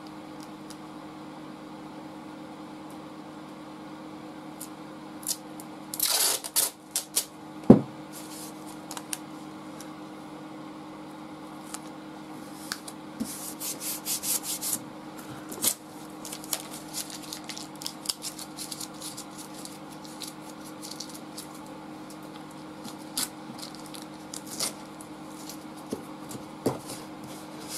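Masking tape being peeled off the roll in short crackling bursts and laid on a wooden board, with hands rubbing it flat and light knocks on the wood, over a steady low hum.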